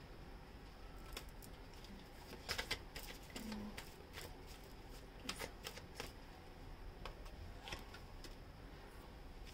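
Tarot cards being handled and laid down on a table: faint, scattered flicks and taps, with a quick cluster about two and a half seconds in.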